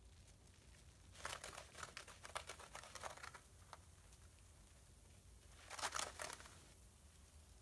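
Faint crackling and splashing of water as a stainless-steel sieve holding a fizzing bath bomb is moved in bath water. One spell of crackles starts about a second in and lasts a couple of seconds, and a shorter, louder one comes near six seconds.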